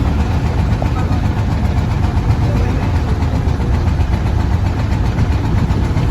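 An engine running steadily with a constant low rumble.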